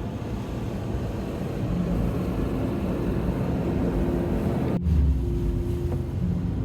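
Steady low vehicle rumble with a few faint humming tones, cut off abruptly and picking up again about five seconds in.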